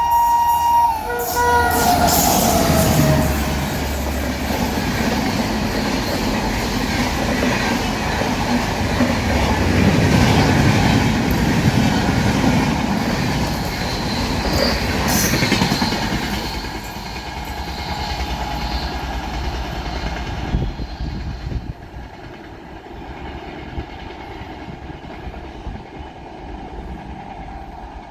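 A WAP-7 electric locomotive's horn sounding a chord of steady tones that stops about a second in; a tone then falls in pitch as the locomotive passes. The train's coaches follow with a long stretch of wheel and rail noise and clickety-clack at speed. The noise drops off sharply a little after twenty seconds as the train goes by.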